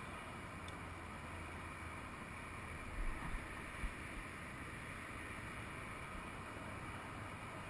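Faint, steady outdoor rumble and hiss. A few low knocks come a little after three seconds in, as the rod carrying the camera is moved.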